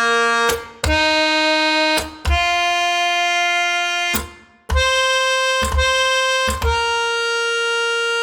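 Sampled harmonium, a reed keyboard, playing a slow run of single held notes. Each note keeps a steady pitch for about one to two seconds, starts with a short click, and is followed by a brief break; the line climbs over the first few notes and then settles around one pitch.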